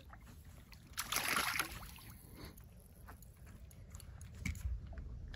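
A hooked crappie splashing at the water's surface as it is lifted out beside the boat: one short, loud splash about a second in, followed by a few small clicks and rustles as the fish is handled on the line.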